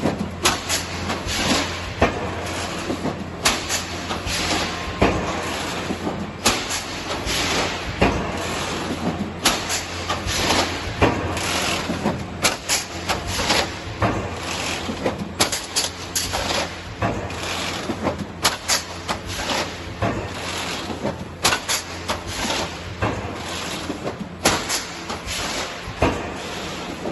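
ER90 high-speed thermoforming machine running: a steady hum under a quick train of sharp mechanical clacks and pneumatic air hisses, with the heaviest strokes about every one and a half seconds as it cycles.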